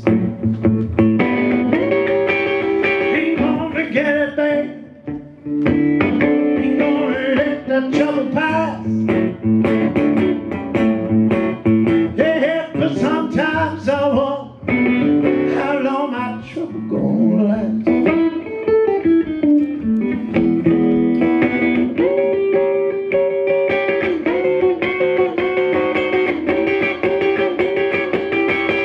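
Live solo blues played on a resonator guitar, a continuous plucked-string performance with some gliding notes.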